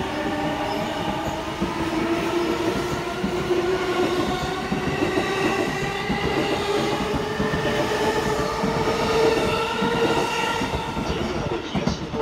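E233 series electric train pulling away and gathering speed, its traction motors whining in several tones that slowly rise in pitch, with wheels clacking over the rails. The sound falls off near the end as the last car goes by.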